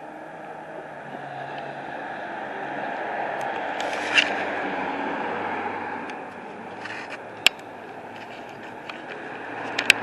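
Outdoor traffic noise: a vehicle goes by, swelling for a few seconds and then fading, with a few sharp clicks near the end.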